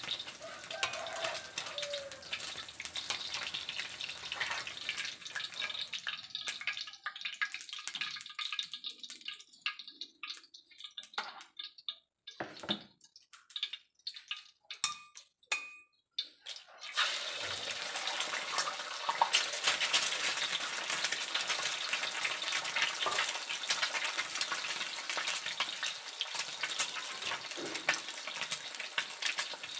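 Eggs deep-frying in hot oil in a wok: a steady sizzle that dies down once the egg is lifted out, leaving only scattered light pops and clicks from the bare oil. A little past halfway a fresh egg goes in and a sudden, louder sizzle starts and keeps on.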